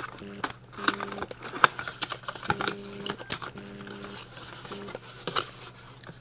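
Product packaging being worked open by hand: scattered taps, clicks and light crinkling of cardboard and wrapping, over a faint steady low hum.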